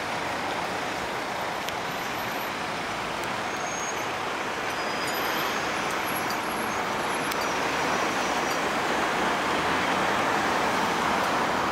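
Road traffic going past: a steady rush of tyre and engine noise, with no siren or horn, growing a little louder in the last few seconds.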